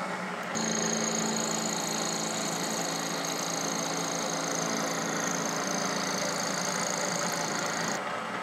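Milling machine spindle running, with a ball end mill cutting stainless steel from about half a second in until near the end: a steady high-pitched whine over the motor hum.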